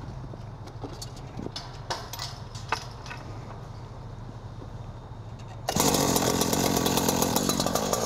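A few light clinks and knocks of tools being set against a chained chain-link gate, then, about two-thirds of the way in, a petrol rotary rescue saw comes on suddenly and runs loud and steady, ready to cut a link of the chain.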